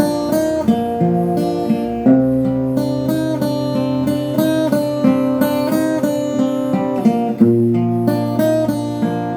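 Solo acoustic guitar playing a steady run of picked notes over a ringing bass note; the bass changes about two seconds in and again near the end.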